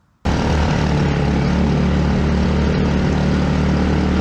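The mini boat's 212cc 6.5 hp single-cylinder engine, driving an inboard surface drive, running steadily at speed. The sound starts suddenly a moment in.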